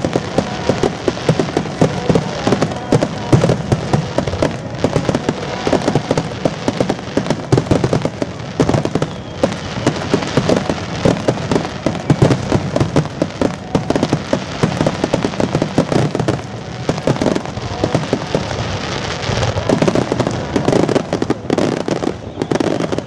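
Aerial firework shells bursting in a rapid, continuous barrage, many loud bangs a second overlapping with no pause.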